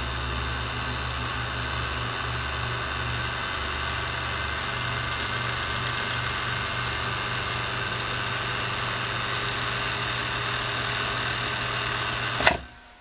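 Vintage Husqvarna Viking sewing machine driven by its 1.5-amp Westinghouse motor, run steadily at full pedal with no fabric under the needle. It stops suddenly with a click near the end as the pedal is released.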